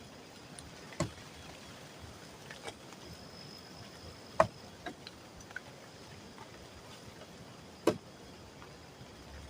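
Three sharp knocks, about a second, four and a half and eight seconds in, with a few lighter ticks between, over a faint steady hiss and a thin high whine.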